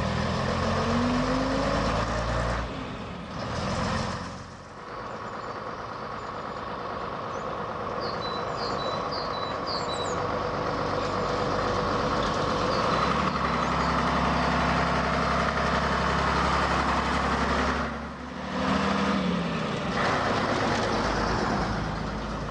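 Engine of the restored pre-war London Transport STL double-decker bus running as it drives along the road, rising in pitch as it pulls, with two short dips in the sound. A few short bird chirps come through in the middle.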